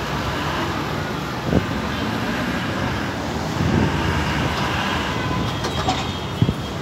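Alexandria tramcar passing close by, its wheels running with a steady rumble on the street rails. Two sharp knocks come through, one about a second and a half in and one near the end.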